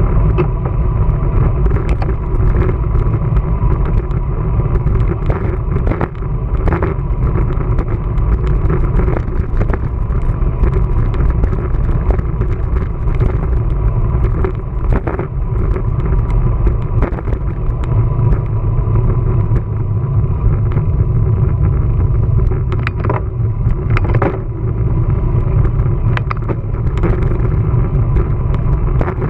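Steady low rumble of wind and road noise from a moving bicycle, with scattered sharp clicks and a faint steady tone.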